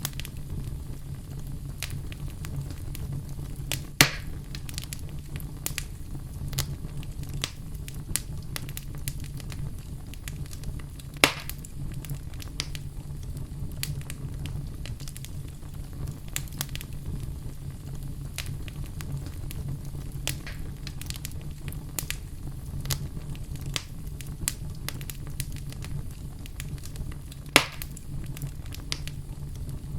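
Fire burning in a fireplace: a steady low rumble of flames with frequent small crackles, and three loud sharp pops, at about 4 s, 11 s and near the end.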